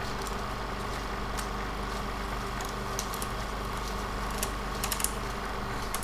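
Steady low hum over a constant hiss, with a few sharp clicks scattered through it.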